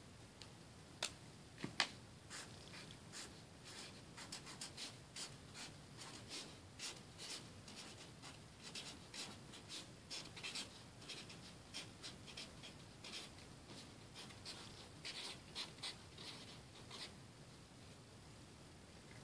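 Felt-tip marker writing on masking tape over paper: quick, irregular scratchy strokes that stop a couple of seconds before the end, with two sharper clicks near the start.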